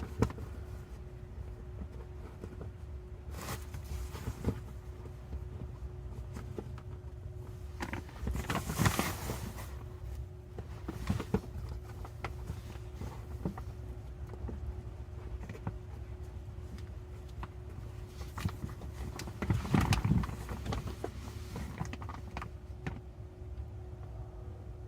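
Rustling and scraping of padding being pushed by hand up inside a car seat back, between the seat cover and its plastic backing, with louder bursts around 9 and 20 seconds. Under it runs the steady hum of the cabin HVAC fan.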